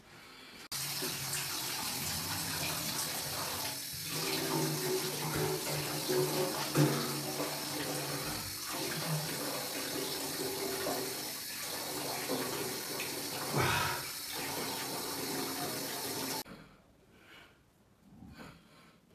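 Water running from a tap into a metal sink basin, splashing as hands are washed under it. It comes on suddenly about a second in and is shut off abruptly near the end.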